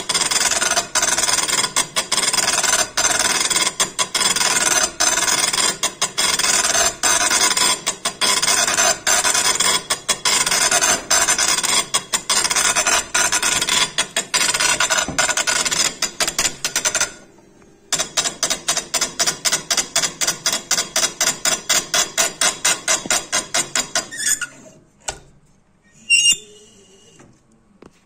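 Magnum 3 impact engraving machine's needle hammering into granite: a loud, dense rapid chatter broken by short pauses several times a second as the head moves along its path. It halts for under a second about two thirds of the way through, runs again, then stops shortly before the end, followed by a short high-pitched sound.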